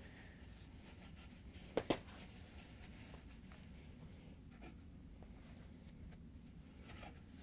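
Faint rubbing and scuffing of a felt dryer drum seal being worked over the drum's lip by gloved hands, with two quick sharp clicks a little under two seconds in and a few softer ticks later.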